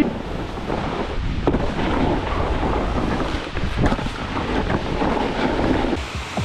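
Snowboard edge scraping and chattering over hard, icy snow, with wind rushing over the microphone.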